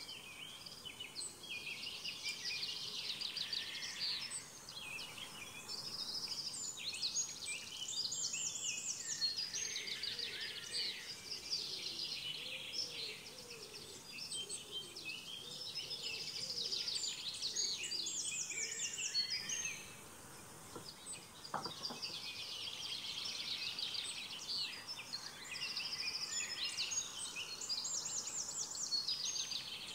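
Small songbirds singing, over a steady background hiss: repeated high chirps and rapid trills come back every few seconds, and the song drops away briefly about two-thirds through.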